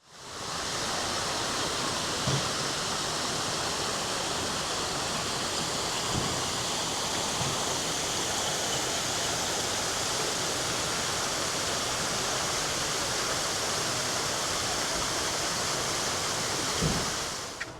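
Steady rush of running water, even and unbroken, with a few faint low thumps. It fades in at the start and cuts off at the end.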